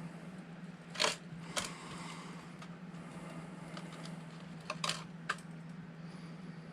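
Small parts of a 1/24-scale RC crawler's axle being handled: a few sharp clicks and light rattles of tiny plastic and metal pieces, about a second in, a couple near five seconds in, over a steady low hum.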